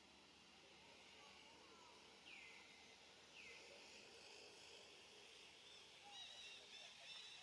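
Faint outdoor ambience with birds calling: two downward-sliding whistles a few seconds in, then a run of quick high chirps near the end, over a soft steady hiss.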